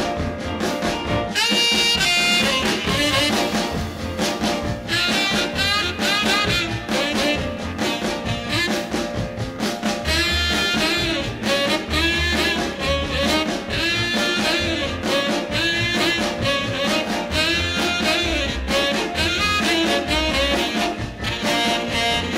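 Early-1960s instrumental rock-and-roll record: a horn section plays the tune over a steady drum-kit beat and a bass line.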